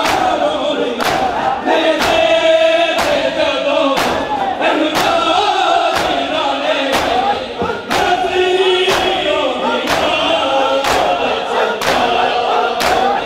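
A large crowd of men doing matam, open palms striking bare chests in unison about one and a half times a second, over a male voice chanting a noha lament and the crowd's voices joining in.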